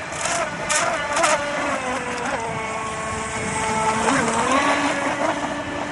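RC model motorboat's motor whining under changing throttle, its pitch dipping and rising again a few times. There are short hissing bursts in the first second or so.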